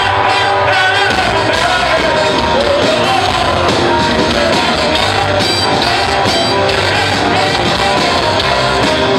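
Live rock band playing loud: a man singing lead into a microphone over drums, electric guitars and keyboard.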